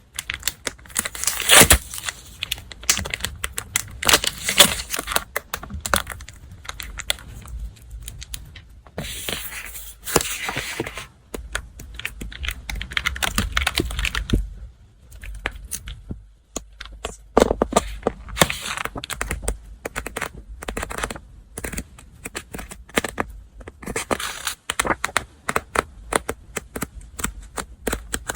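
Paper and stationery packaging handled close up: rustling and crinkling in irregular bursts, with light taps and clicks between them.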